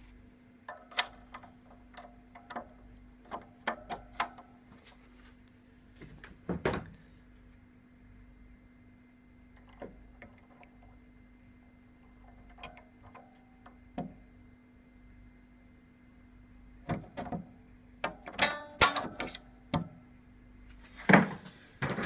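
Scattered clicks, taps and knocks of plastic and metal as a Panasonic microwave door's latch hook and its spring are handled and refitted with pliers, with a busier run of clicks near the end. A faint steady hum sits underneath.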